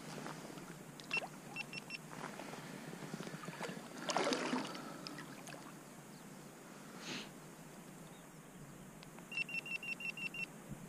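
Short electronic beeps at one steady pitch: three quick beeps about a second in and a fast run of about seven near the end, over faint water and wind noise, with a brief rush of noise about four seconds in.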